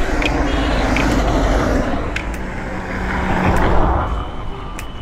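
Cars passing close by on the road, their engine and tyre noise swelling up and fading twice, one right after the other.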